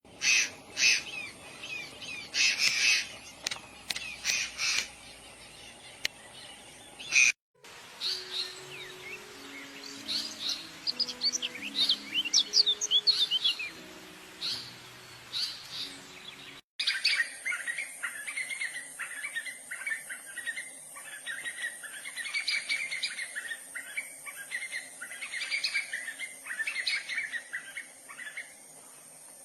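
Bird songs and calls in three separate recordings that cut abruptly from one to the next: first loud separate calls, then quick slurred high notes, then continuous warbling chatter.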